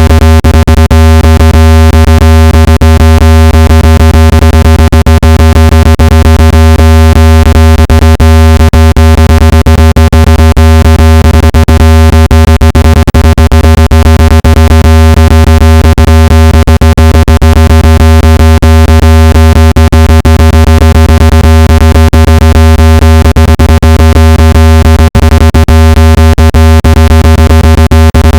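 Loud, steady low electronic buzz tone with a long stack of overtones, played to shake water and dust out of a phone speaker. It holds unchanged, with rapid flickering dips.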